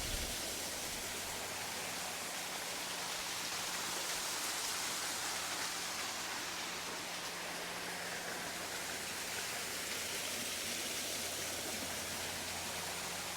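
Waterfall and the small stream at its foot rushing: a steady, even hiss of falling and running water.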